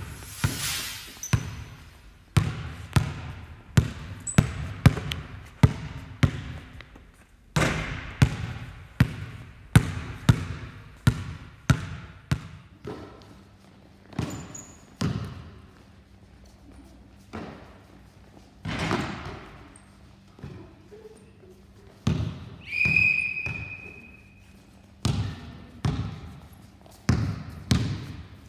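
Basketball bouncing on a gym floor and being passed between players: a run of sharp thuds, each with a short echo from the hall, coming about once a second in the first half and more sparsely later. A brief high squeak comes about two-thirds of the way through.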